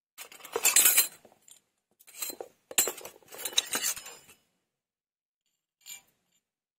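Small stainless steel miniature kitchenware clinking and rattling together as it is handled, in several bursts over about four seconds, then a single light tap near the end.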